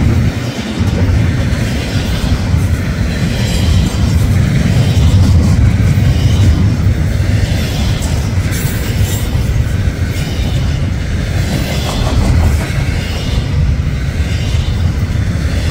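Double-stack intermodal freight train rolling past at close range: a loud, steady rumble of wheels and cars on the rails.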